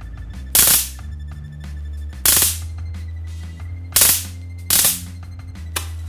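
Four short crackling bursts of high-voltage spark discharge from a Chinese high-voltage arc module, each about a third of a second long, as the arc is fired in brief pulses across wire electrodes through a candle flame. Steady background music plays underneath.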